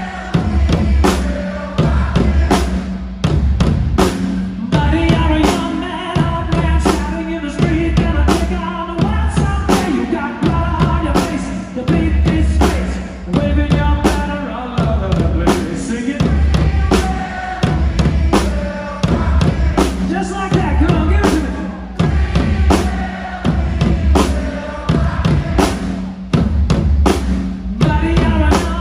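Live rock band playing with heavy, pounding drums: several drummers beat a bass drum and standing drums together over guitars and keyboards, with a man singing over it.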